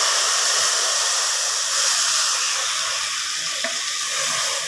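Stream of water pouring into an aluminium pot of freshly roasted vermicelli and sugar, a steady hiss that fades toward the end as the pouring stops.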